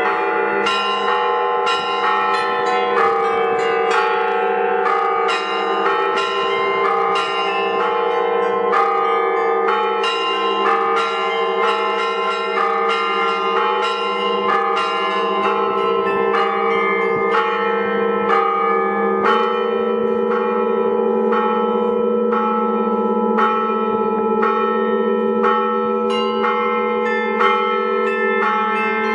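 Russian-style bell ringing on a many-bell zvonnitsa: a continuous run of quick strikes on the smaller bells over the sustained hum of the larger bells, whose low tones change twice.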